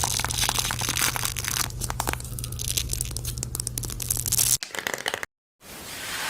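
Dense crinkling, crackling handling noise, like something crinkly being crumpled or torn, over a steady low hum. It cuts off abruptly about four and a half seconds in, and after a brief silence a soft hiss rises near the end.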